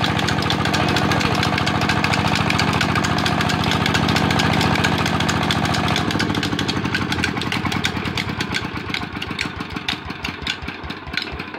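Stationary diesel engine of a belt-driven tubewell water pump running steadily, then shut off about six seconds in; its firing beats slow, become irregular and fade as it coasts down.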